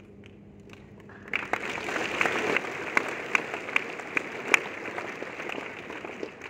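An audience applauding: clapping breaks out about a second in, dense with sharp individual claps standing out, and eases off toward the end.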